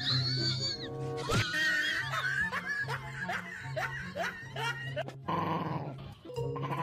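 A puppy whining in high, wavering cries, then a run of short whimpering yelps about three a second, over background music with a steady bass line. A rough, raspy noise takes over near the end.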